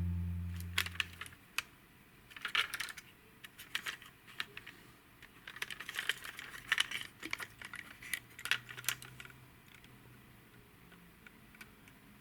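Music fades out in the first second or so, then light clicks and small rattles of toy model cars and their packaging being handled, stopping about nine seconds in.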